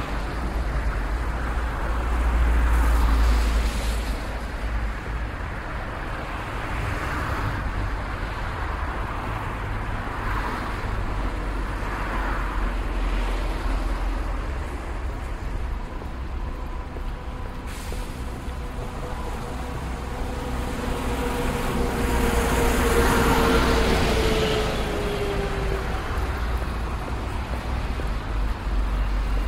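City street traffic: a steady low rumble of cars passing, with louder swells as vehicles go by about three seconds in and again around twenty-three seconds in. Toward the latter part a vehicle's whining tone sounds for a few seconds and dips slightly in pitch as it passes.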